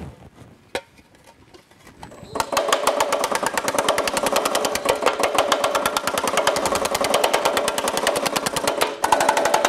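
Baileigh MH-19 power hammer pounding a sheet-metal bowl through shrinking dies: a rapid, even run of metallic blows starting about two seconds in, with a brief break near the end. It is a shrink pass around the bowl that draws it deeper.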